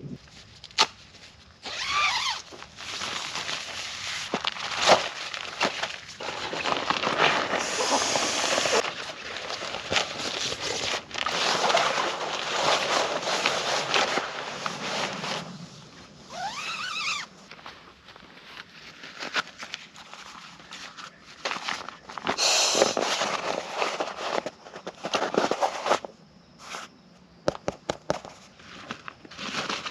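Rustling, clicking and shuffling of camping gear being handled to pitch a tent, in irregular bursts with a few sharp knocks and short sweeping sounds, quieter stretches in between.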